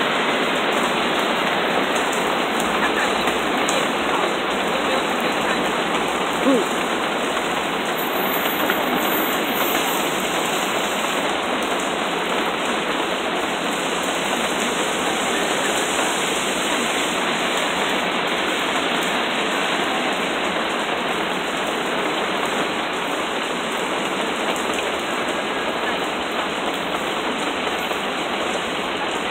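Heavy rain pouring steadily onto a street and pavement, a continuous even hiss. One brief falling tone stands out about six and a half seconds in.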